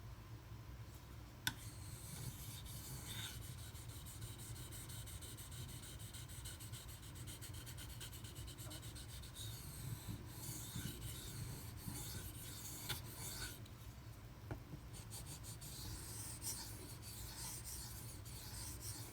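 Steel knife blade being stroked rapidly back and forth on a 2500 grit silicon carbide sharpening stone, a steady gritty scraping with short pauses, after a sharp tap about a second and a half in.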